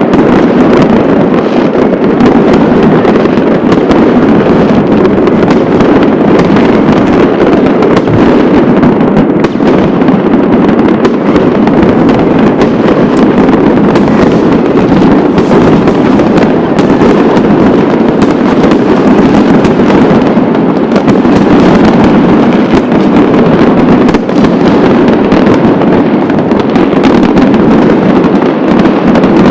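A continuous, loud barrage of New Year's Eve fireworks and firecrackers: countless bangs and crackles overlap into one steady din with no breaks.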